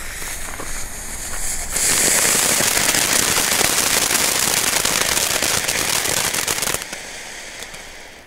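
Weco Star Spider firework ground fountain burning: a loud hissing spray of sparks with dense crackling. It surges to full strength about two seconds in and dies away near the end.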